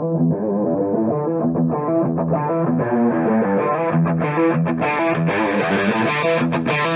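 Guitar-led intro music with a steady beat, growing brighter as it goes. A heavier full-band rock part comes in right at the end.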